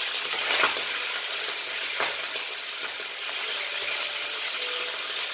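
Mutton pieces sizzling steadily as they fry in a non-stick kadai, stirred with a spatula, with a couple of sharp clicks about half a second in and again at two seconds.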